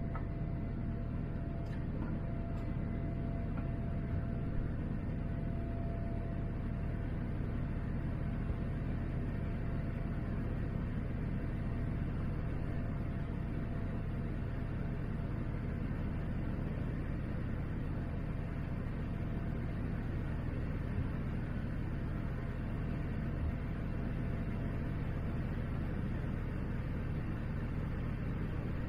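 Steady cabin roar inside a Boeing 787-9 in its climb after takeoff: engine and airflow noise, heaviest in the low range, with a faint steady whine that fades out about seven seconds in.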